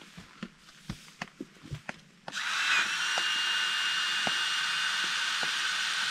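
Small handheld electric air pump starting about two seconds in and then whirring steadily as it inflates a sleeping pad. Before it, a few light knocks and rustles of gear being handled.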